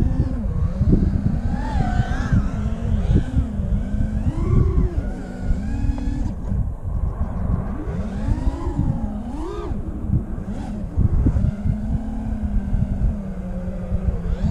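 FPV racing quadcopter's brushless motors and propellers whining, heard from the onboard camera. The pitch rises and falls over and over as the throttle is worked through low fast passes, over a steady rush of wind on the microphone.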